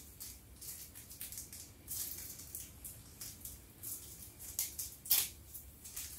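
Small packaging rustling and crinkling by hand in short, irregular bursts as small accessories are unwrapped, with a louder crinkle about five seconds in.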